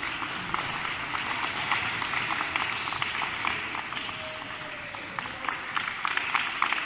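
A group of volleyball players clapping their hands together: many overlapping hand claps, steady throughout.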